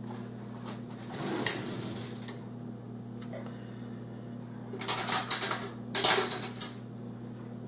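Metal spice tin with a pry-up lid being worked at by hand as someone struggles to get it open: a few bursts of clicking and scraping, over a steady low electrical hum.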